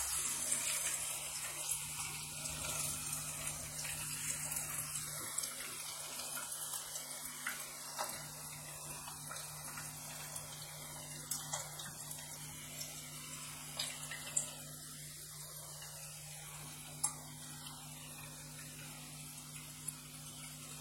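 Chicken pakoras deep-frying in hot oil in a kadai: a steady sizzling hiss with scattered crackles and a few sharper pops, slowly softening with the gas flame turned down. Now and then a slotted spoon stirs and taps against the pan.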